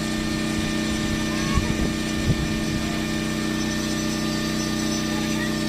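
An engine running steadily at a constant speed, with a few faint knocks.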